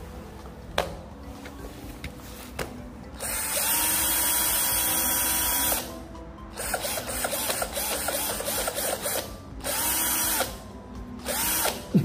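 A pair of cordless drills running in bursts: one long run of about two and a half seconds, then a stretch of rapid on-off pulsing on the trigger, then two short revs near the end. Each run spins up and winds down.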